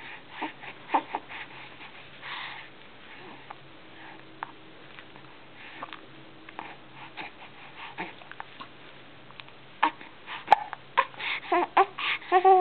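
A pet hiccuping: short, sharp hiccups at uneven intervals, coming closer together and louder from about ten seconds in, where some of them carry a squeaky pitch.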